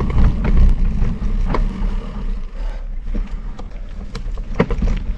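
Mountain bike ridden on a trail, recorded close to the bike: a steady low rumble of tyres and wind on the microphone, with scattered knocks and rattles from the bike, the sharpest about four and a half seconds in.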